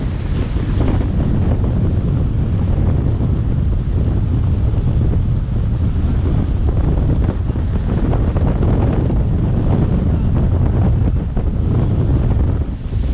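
Wind buffeting the microphone on a moving boat: a loud, steady low rumble, with water rushing beneath it.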